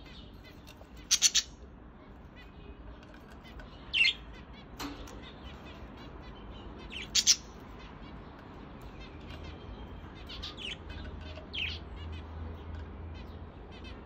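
Budgerigars chirping: short, sharp, high chirps about one, four and seven seconds in, the first and last doubled, then softer chirps and quiet twittering.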